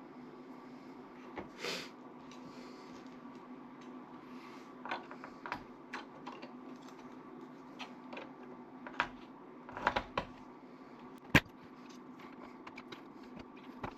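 Scattered small clicks, taps and rustles of parts being handled, with one sharp loud click about three-quarters of the way through, over a steady low hum.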